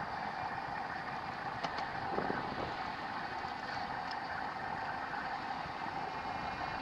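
YMC Highlander 500cc ATV running steadily while its winch hauls it forward out of deep drifted snow, a constant mechanical hum with a steady whine.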